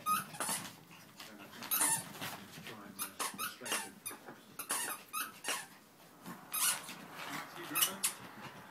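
Chihuahua puppies play-fighting, giving short high-pitched yips and squeaks in quick, irregular bursts.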